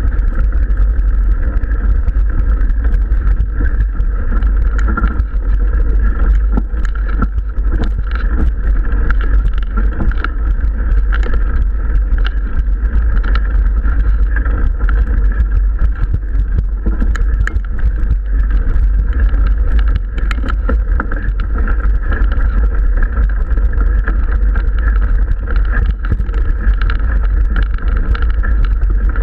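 Mountain bike climbing a gravel track: a steady low rumble of wind and riding vibration on the camera's microphone, with scattered clicks and crunches from the tyres and bike on loose gravel.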